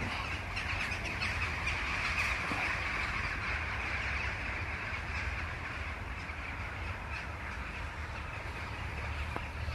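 A large flock of crow-family birds calling all at once, a dense, steady chorus of many overlapping caws, over a low steady rumble.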